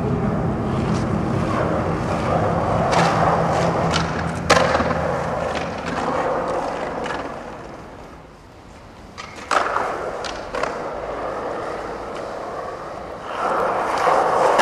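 Skateboard wheels rolling over concrete, with sharp clacks of the board about four and a half seconds in and twice more around nine and a half to ten and a half seconds. The rolling dies down to near quiet about halfway through, then grows louder again near the end as a board rolls closer.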